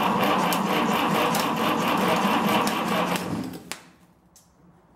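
Tractor starter motor cranking the engine with a fast, even chatter for about three and a half seconds without the engine firing, then stopping, with a sharp click just after. Sparks at the starter terminal point to a loose connection or poor earth, which the owner later blames for the failure to start.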